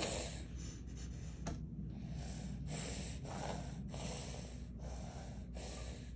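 A baby's angry huffing: short, repeated snorting breaths through the nose, about two a second, with a single click about a second and a half in.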